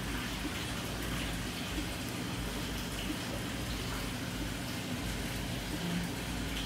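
Steady low hum with an even hiss underneath, the running background of brewery equipment.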